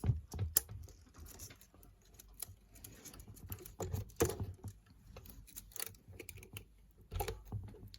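Scattered clicks, taps and light scrapes of a film reel being fitted onto an 8mm film projector and handled into place.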